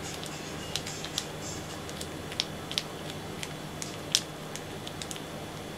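Scattered small clicks and crinkles of a clear plastic bag and a thin stick as coloured resin is worked inside the bag; the sharpest click comes about four seconds in.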